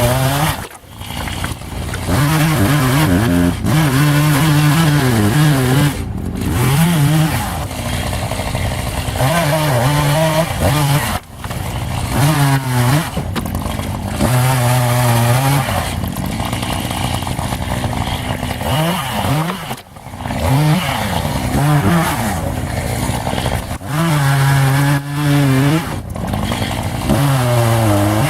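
Echo two-stroke chainsaw cutting firewood, its engine pitch sagging under load in the cut and climbing back again over and over, with a few brief drops in level.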